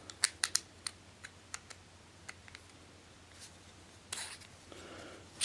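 Small machined metal parts clicking and tapping as they are handled and fitted together: a quick run of sharp clicks in the first two seconds, then a few scattered ones. About four seconds in comes a brief scraping rub.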